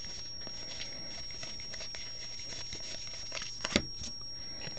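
2015 Bowman Draft chrome baseball cards rustling and sliding against each other as they are flipped through by hand, with faint ticks of card edges and a couple of sharper card taps late on.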